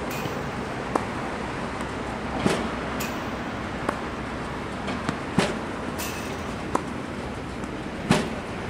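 A tennis ball machine firing balls with a sharp pop three times, about three seconds apart. Each pop is followed about a second and a half later by a fainter crack of the racket hitting the ball back from across the court, over a steady background hum.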